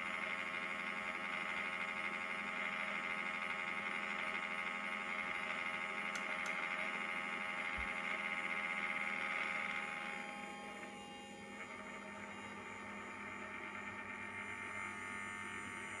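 3DR Solo camera gimbal giving off a steady high-pitched electric buzz: the noise and vibration the gimbal makes when held at 0 degrees of tilt. About ten seconds in the buzz drops in level and changes as the gimbal starts to tilt.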